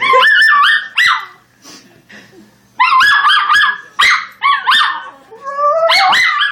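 Schnauzer puppy 'singing': high-pitched, wavering howls and yips in three bouts with short pauses between.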